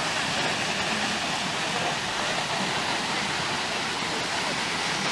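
Steady rush of flowing water, an even, unbroken noise.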